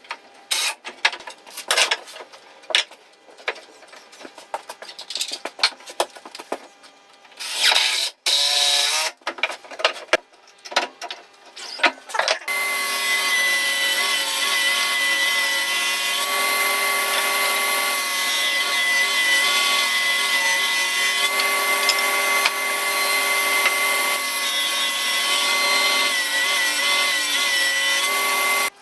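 Cordless drill-driver driving screws into pine battens in short bursts, among knocks and clatter of the timber. About twelve seconds in, a table saw starts and runs steadily with a constant whine to the end, a pine strip being fed through it near the end.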